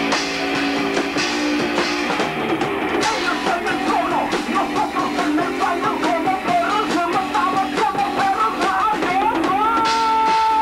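Rock band playing live in a rehearsal: electric guitars, bass and drum kit. About three seconds in a wavering high melody line comes over the top, and near the end a note slides up and holds.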